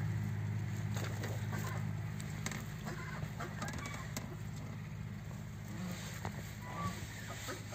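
Faint clucking of farmyard fowl, a few short calls near the end, over a steady low hum.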